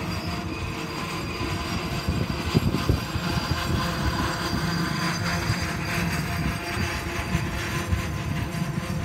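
Union Pacific double-stack intermodal well cars rolling past: a steady rumble of steel wheels on rail with irregular clatter and knocks throughout.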